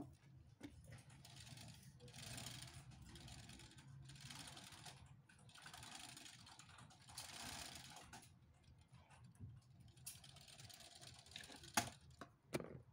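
LEGO Technic car model rolled back and forth across a tabletop by hand: its plastic wheels and gears give a soft clattering whir in several pushes of a second or two each. Two sharp plastic clicks come near the end.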